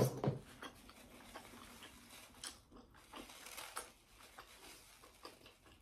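Close-up eating sounds: a person biting and chewing food from a seafood boil. There is a louder bite at the start, then irregular soft mouth clicks and smacks.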